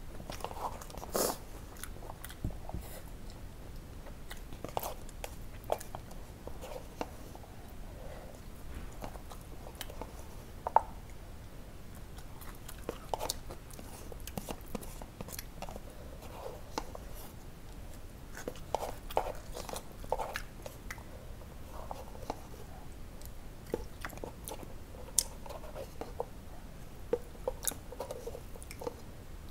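A person eating Korean spicy ramen: chewing and biting, with many irregular sharp mouth clicks and occasional crunches.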